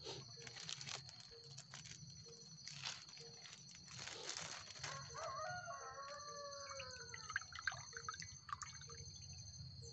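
Galangal sap dripping and trickling into a glass, with small handling clicks, faint.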